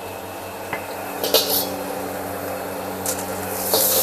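A few sharp metal clanks and knocks of kitchen utensils against a wok and board, the loudest a little over a second in, over a steady low hum. Near the end, sizzling starts in the hot wok and grows louder.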